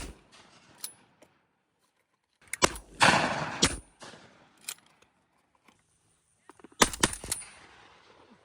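Several shotguns firing at doves in quick volleys: one shot at the start, a cluster of shots about two and a half to three seconds in, a lone shot near five seconds, and another cluster about seven seconds in, each ringing out briefly.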